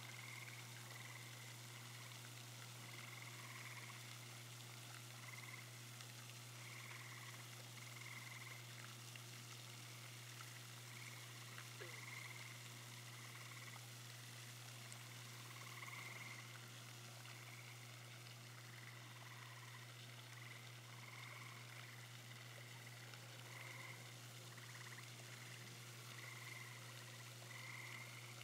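Faint frogs calling, short calls repeated every second or two, over a steady low hum and hiss.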